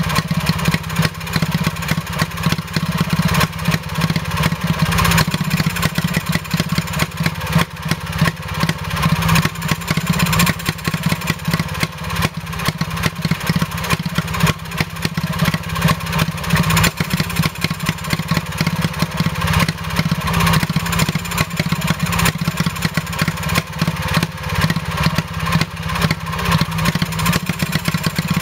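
1934 Villiers WX11 (WBH variant), a 2.5 hp, 343 cc hopper-cooled two-stroke stationary engine, running steadily off-load with a loud, rapid, even exhaust beat.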